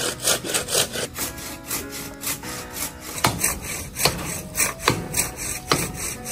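Hand saw cutting through the trunk of a fallen lychee tree in steady back-and-forth strokes, about two and a half a second.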